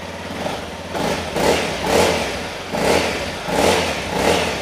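Honda CRF250L's single-cylinder four-stroke engine breathing through its stock exhaust: it idles, then from about a second in it is revved in a series of short throttle blips, about once a second. Quite a sweet sound but nothing outrageous: the quiet, mild note of the stock exhaust.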